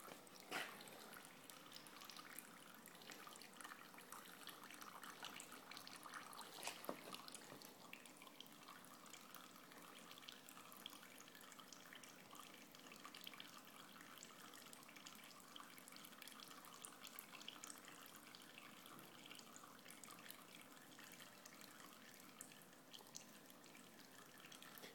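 Faint dripping and trickling of engine oil draining out of a BMW 120d's intercooler, which filled with oil after a turbocharger failure. There are two soft knocks, one just after the start and one about seven seconds in.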